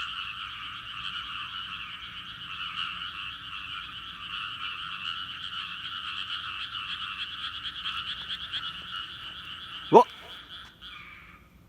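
A dense, steady chorus of rice-paddy frogs calling together. Near the end a single loud, short sound sweeps quickly upward in pitch, and the chorus stops abruptly, leaving only a few isolated calls.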